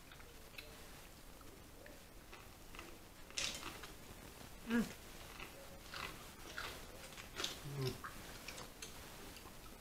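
Close-up eating of a seafood boil: chewing and smacking with scattered clicks and crackles of shell and food, and two short low vocal sounds, one about halfway through and one near the end.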